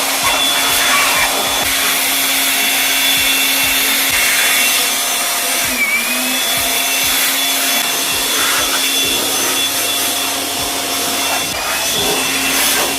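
Loud, steady whirring of an electric motor-driven machine with a constant hum, like a blower or vacuum unit running, with a brief dip in pitch about six seconds in.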